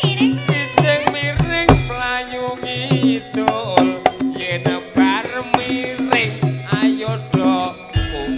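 Live Javanese band music: hand-drum (kendang) strokes in a quick, busy rhythm over held low notes and a wavering melodic line.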